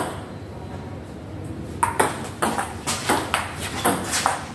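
Table tennis rally: the ball clicking off the bats and the table in quick alternation, about four hits a second, starting about two seconds in.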